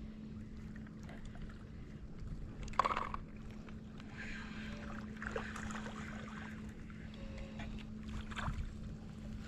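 A boat's engine running steadily with a low hum, and a sharp knock about three seconds in.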